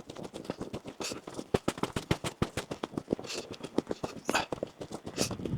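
Boots crunching through packed, icy snow: a rapid, irregular run of crackling crunches.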